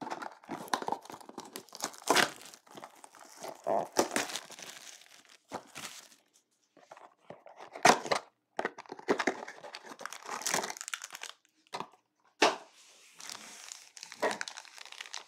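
Foil trading-card packs and cardboard card boxes being handled and opened: irregular crinkling and tearing rustles with sharp clicks, broken by a few short pauses.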